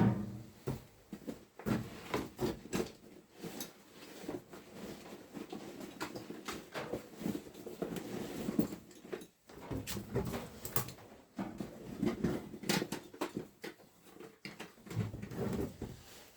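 Irregular knocks, clicks and rustling of handling and movement in a small room, scattered unevenly with no steady rhythm.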